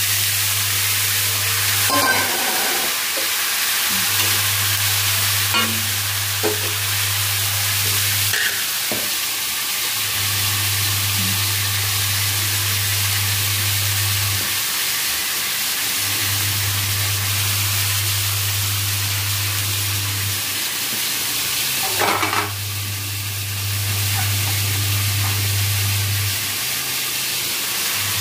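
Chopped tomatoes and onions sizzling steadily in a steel kadhai, with a few brief clinks of a spoon against the pan.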